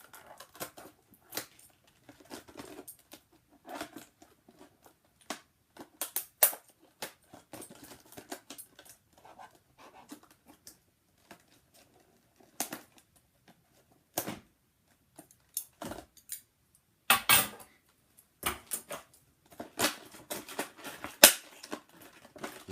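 Scissors snipping and cutting open a cardboard retail box, with scattered clicks and rustles of the packaging being handled; a few louder short cuts or rips come in the last several seconds.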